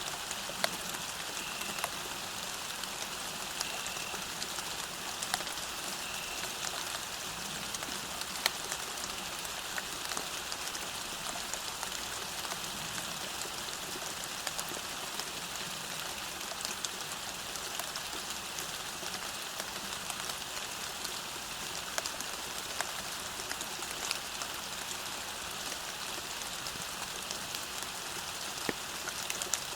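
Steady rain falling on a path, an even hiss with sharp single drops ticking now and then. A few faint short high tones come in the first six seconds.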